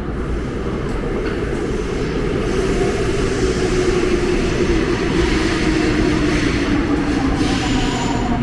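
Seoul Subway Line 5 train pulling into the platform. Its running noise grows louder while a motor whine falls slowly in pitch as it brakes.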